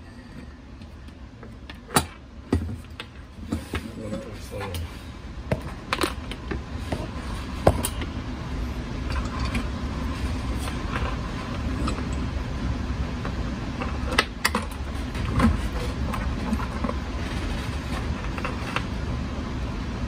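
Handling noise from taking apart an IP camera's plastic mount base and its small metal parts: scattered sharp clicks and knocks, the loudest about 2, 8, 14 and 15 seconds in, over a steady low background rumble.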